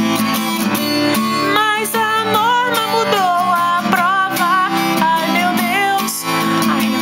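Music: acoustic guitar accompaniment with a wavering lead melody line over it.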